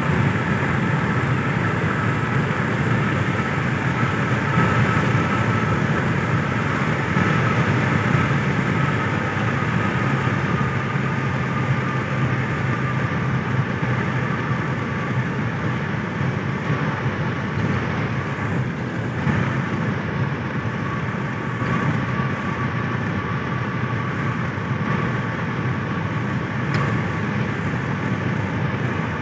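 Car driving at highway speed, heard from inside the cabin: a steady low rumble of engine and tyres on the road, with a faint thin whine that slowly drops in pitch.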